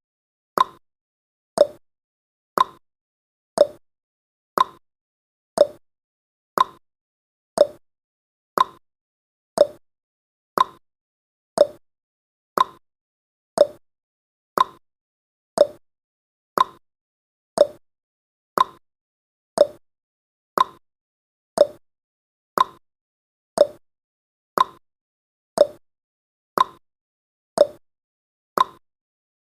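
Countdown timer's ticking sound effect, one sharp tick every second, alternating higher and lower like a clock's tick-tock.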